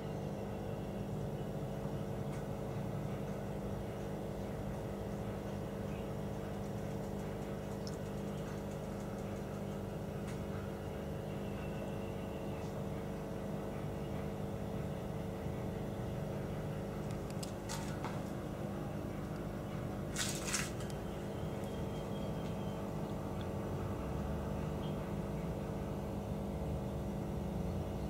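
Steady machine hum with several fixed pitches, with a brief sharp click or tap about twenty seconds in.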